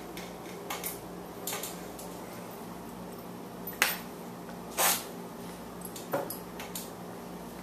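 A boxer puppy and an adult boxer play-biting: scattered short snaps and wet mouth smacks, the loudest two around the middle, over a steady low hum.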